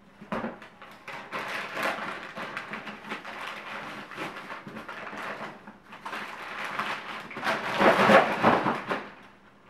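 Packing paper and cardboard rustling and crinkling as they are pulled by hand out of a cardboard box, with a louder burst of crumpling about eight seconds in.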